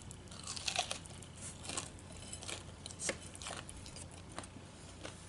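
A person biting into and chewing breaded chicken tenders, with irregular crunches.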